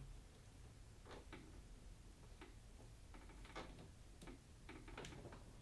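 Near silence, with a few faint, irregularly spaced light clicks.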